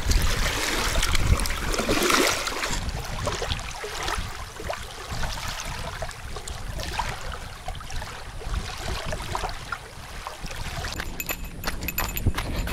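Small waves lapping and washing over a pebbly shore, with louder splashing in the water's edge for the first couple of seconds. A run of quick ticks joins in near the end.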